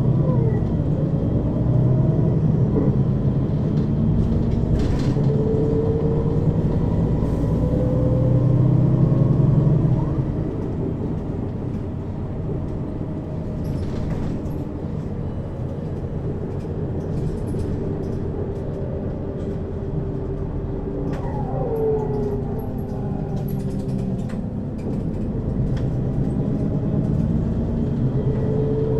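Mercedes-Benz Citaro city bus on the move, heard inside the cabin over the second axle: a steady rumble from the engine and driveline, with whining tones from its ZF Ecomat automatic gearbox that glide up and down in pitch. It is louder for the first ten seconds, then eases off.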